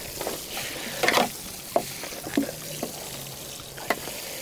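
Water spraying from a watering can's rose onto potted tomato plants: a steady hissing spatter, with a few light knocks, one about a second in and another near the end.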